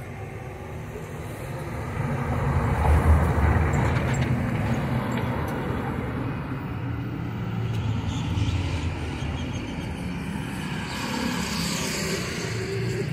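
Road traffic on a city street: cars and vans passing with engine rumble, growing louder about two seconds in.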